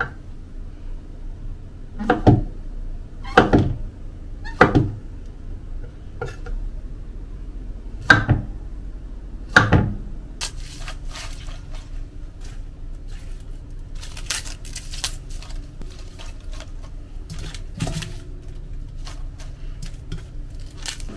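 Chef's knife slicing brown mushrooms on a wooden cutting board: a few separate knocks of the blade on the board a second or so apart, then lighter, quicker taps and clicks.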